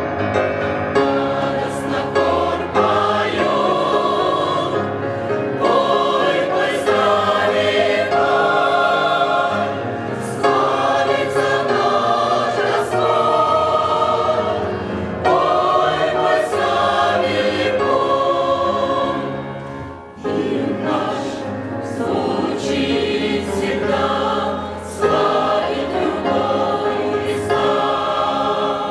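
Church choir singing a hymn, phrase by phrase, with short breaks between phrases.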